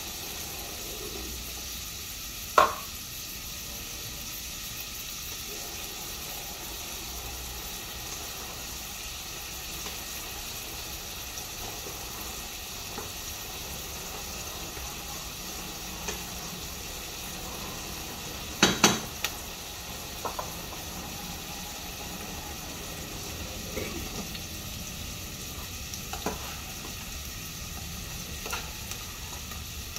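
Pots of pumpkin and dal simmering, a steady hiss, with a few sharp knocks of a spoon against a pot; the loudest pair of knocks comes about two-thirds of the way through.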